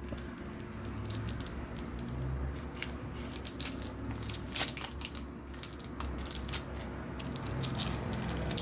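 Crinkling of an opened foil Pokémon booster pack wrapper and rustling of the cards being pulled out, with scattered small clicks and one sharper crackle a little past halfway.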